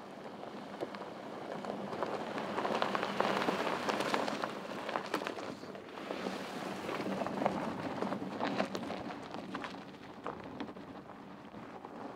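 Porsche Cayenne's tyres crunching over loose gravel, with many small stones clicking and popping, growing louder as the SUV passes about three to five seconds in and again around eight seconds.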